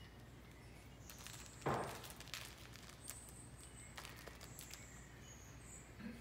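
Cats playing with plush toys on a tile floor: soft rustling and handling noises, with one louder thump about a second and a half in and a few light taps after it, over a low steady hum.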